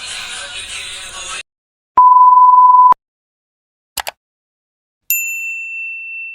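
Background music that cuts off suddenly, then added electronic sound effects: a loud steady single-pitch beep lasting about a second, a quick double click, and a high bell-like ding that rings on and slowly fades.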